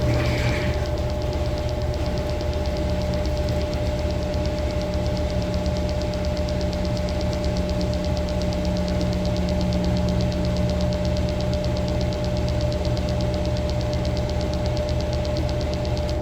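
Maytag Bravos MCT top-load washer running during its rinse cycle: a steady motor hum with one constant tone and a fast, even ticking, and a brief brighter noise right at the start.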